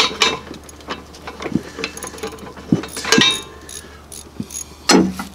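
Metal clinks and knocks from a tractor's three-point hitch as the hydraulic top link's steel pin is worked loose by hand: scattered short clinks, the loudest with a brief ring about three seconds in.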